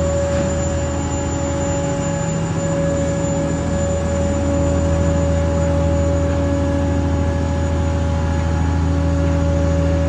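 Heavy-haul transporter carrying a hydrotreating reactor vessel: its tyres and steel frame give a steady low rumble under a held, whining tone that wavers slightly but never stops.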